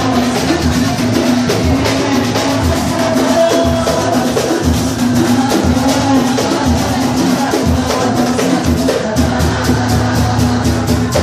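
Batucada samba percussion ensemble playing live: many drums and percussion instruments beating a dense, driving rhythm without a break.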